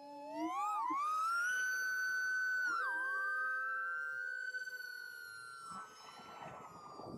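FPV quadcopter's motors whining through its onboard microphone, the pitch dipping and rising with throttle changes, holding high for a few seconds, then slowly sinking. Near the end a rough rushing noise joins in.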